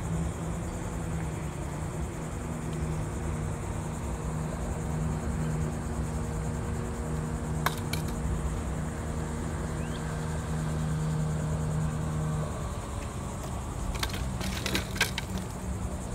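A steady low motor hum from a boat on the river stops about three-quarters of the way through. Under it runs a constant high buzz of insects. A single sharp click comes about halfway, and a few more clicks follow near the end.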